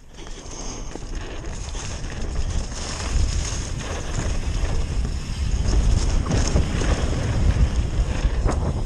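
Wind buffeting the action camera's microphone as a downhill mountain bike rides fast down a leaf-covered dirt trail, with the bike rattling and knocking over bumps. The rush grows louder over the first few seconds as the bike picks up speed.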